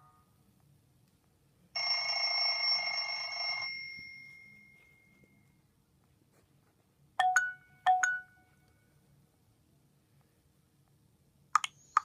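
Nokia 6700 Classic clock alert tones played through a Nokia 7100 Supernova's loudspeaker. First comes a harsh buzzy electronic alarm tone lasting about two seconds. A few seconds later come two short ringing beeps in quick succession, and near the end two quick high blips as the message tone begins.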